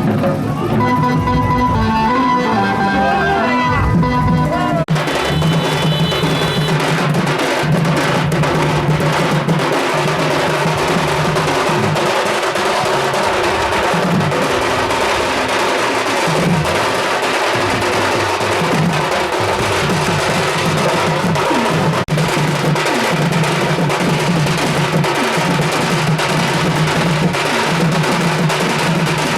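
Music with fast, dense drumming. A gliding melodic line rides over it for the first few seconds, then about five seconds in the music changes abruptly to steady, unbroken drumming.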